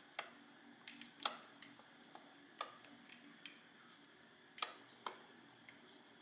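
Faint, irregular light clicks and ticks, about nine in six seconds, from handling tools while oil is added to the drill hole in the bolt. The drill is not running.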